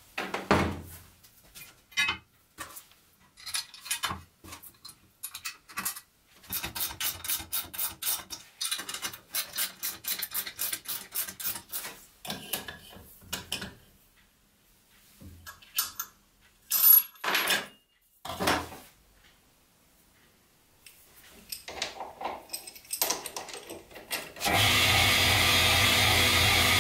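Metal parts set down and handled on a wooden workbench: scattered clicks and knocks, a long run of rapid, even clicks like a tool tightening bolts, and a few sharp metal knocks, the loudest in the middle. About three-quarters of the way in, a metal lathe takes over: the spindle running steadily as the tool cuts a round metal bar.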